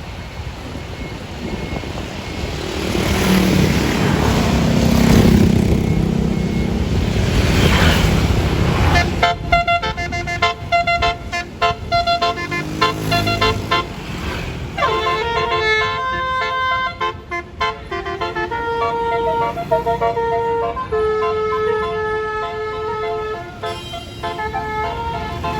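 A bus engine passing close, rising and falling over the first nine seconds. Then a multi-tone 'basuri' telolet horn plays a melody of held notes that change in steps, with a falling slide about fifteen seconds in.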